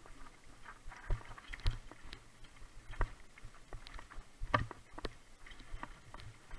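Mountain bike rattling and knocking as it rolls down a stony, rocky trail: irregular clacks from the bike as the tyres hit stones, with a few sharper knocks.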